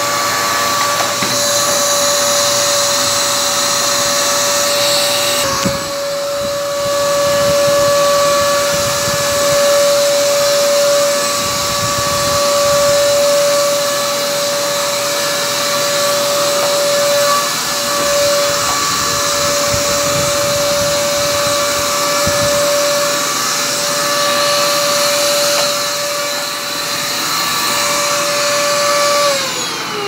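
Forbes vacuum cleaner running with a steady high whine and a rushing of air as its floor brush is worked over a carpet rug. About a second before the end the motor winds down, its whine falling in pitch.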